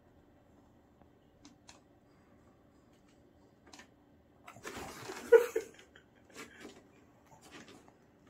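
French bulldog snuffling with its nose pushed into a hole of a cardboard treat box, trying to get at a sausage: light taps and clicks, then a louder burst of breathing noise about halfway through, with a few smaller ones after.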